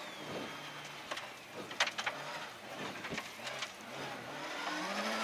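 Rally car engine heard from inside the cabin, running at low revs through a tight square-left corner, with scattered sharp clicks and knocks. Near the end the revs climb as the car accelerates out of the corner.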